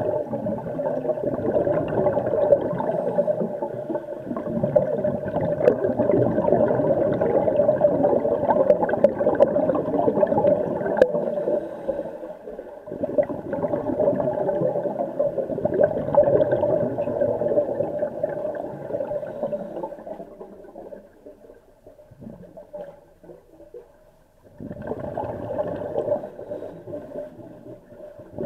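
Muffled underwater noise in a swimming pool, heard from a camera submerged in its housing: a steady hum mixed with gurgling water. It dies down for a few seconds near the end, then comes back.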